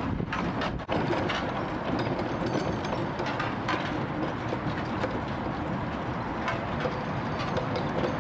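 Fowler B5 steam road locomotive on the move, towing a four-wheeled wagon: a steady mechanical rumble and clatter from its wheels and motion, with a scattering of irregular knocks. The sound breaks off briefly about a second in.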